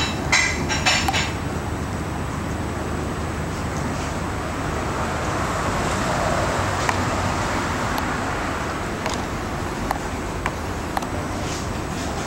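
Steady outdoor background noise like road traffic, swelling for a few seconds in the middle as if a vehicle passes. A few brief, sharp high sounds come near the start.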